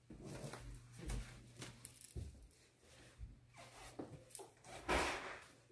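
Rustling and rubbing noises of cloth or a handled phone, in short scattered bursts, the loudest about five seconds in, over a faint steady low hum.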